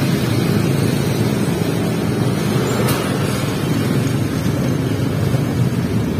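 Steady low rumble of running vehicle engines, with a faint click about three seconds in.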